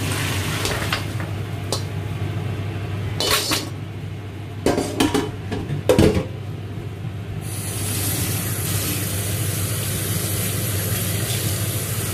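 Hot cooking water poured from a pot into a metal strainer in a stainless steel sink, then a few clinks and knocks of the pot and metal strainer around the middle. From about seven seconds in the kitchen tap runs steadily in a strong flow as the parboiled meat is rinsed under it.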